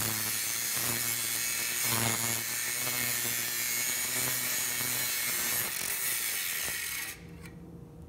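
Angle grinder with an abrasive cut-off wheel cutting through 5/8-inch-thick steel plate: a steady, harsh hiss over the motor's hum, which stops about seven seconds in.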